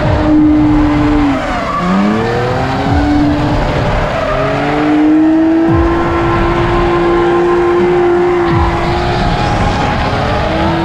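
Drift car engine revving, dipping and climbing in pitch, then held at high revs for several seconds while the tyres squeal through a power slide.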